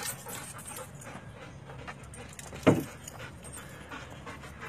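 Belgian Malinois dogs panting, with one short, loud bark about two-thirds of the way in.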